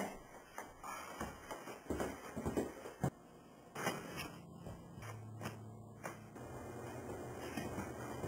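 Faint scattered knocks and shuffling, like footsteps on a wooden floor and the handling of a handheld camcorder being carried. A low steady hum comes in about five seconds in.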